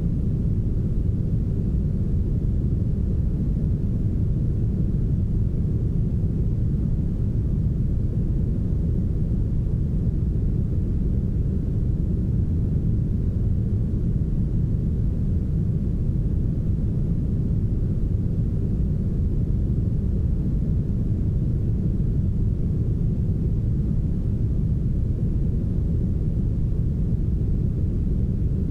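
Heavily smoothed brown noise: a steady, even, deep rumbling hiss with almost nothing in the higher register.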